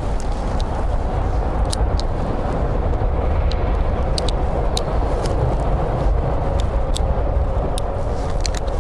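Steady low rumble of road traffic, with scattered small sharp clicks as hands handle a baitcasting reel with its side plate off.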